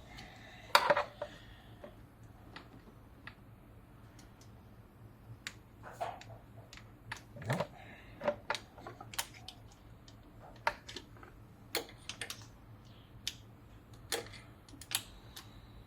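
Irregular clicks, taps and clanks of hand tools and engine parts knocking together while the old thermostat housing is worked loose, with one louder ringing clank about a second in.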